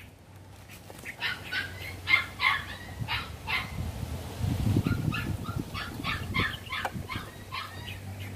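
A dog yipping and barking in a run of short calls, about three a second, starting about a second in.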